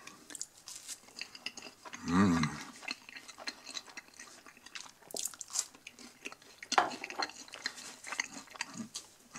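A person biting and chewing a piece of soft pan pizza crust dipped in barbecue sauce, close to the microphone: wet mouth clicks and crackles with a few sharper bites. About two seconds in there is a short hummed "mm".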